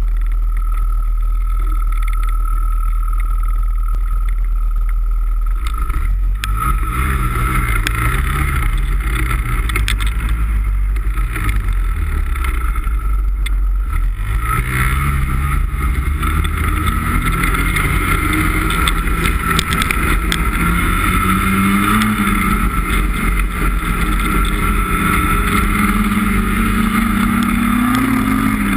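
A 2017 Ski-Doo MXZ X snowmobile's 850 E-TEC two-stroke twin runs steadily at first. About six seconds in, it starts accelerating, with the engine pitch rising and falling as the throttle changes. The revs climb in long pulls about halfway through and again near the end.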